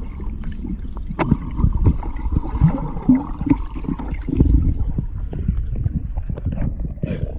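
Water heard through a submerged microphone: muffled, low gurgling and bubbling, with many scattered knocks and clicks, as a dog swims and dives close by underwater.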